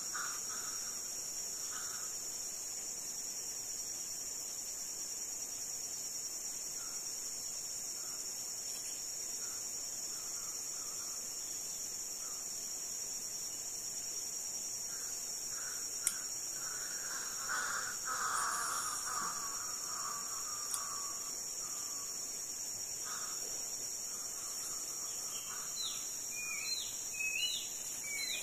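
A steady, high-pitched drone of insects, with a bird calling on and off, loudest about two thirds of the way in, and a few short falling chirps near the end.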